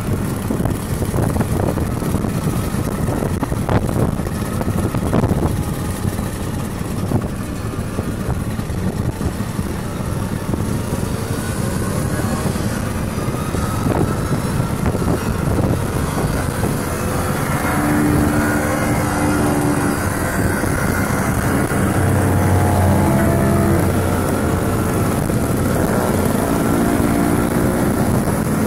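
Convoy of vintage two-stroke Vespa-style scooters riding together, a steady mix of engine noise and wind and road rush. In the second half single scooter engines come close, their buzzing tones stepping up and down in pitch as the riders work the throttle.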